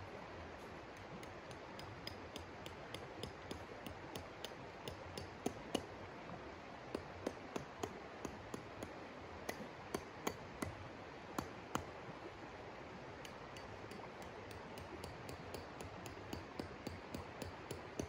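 A shallow river rushing steadily, with runs of sharp clinking taps of hard objects knocked together, two or three a second at their busiest and loudest in the middle.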